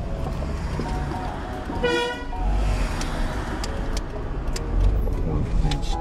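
A single short car horn toot, one steady tone about half a second long, about two seconds in, over background music and the low rumble of the car's road noise.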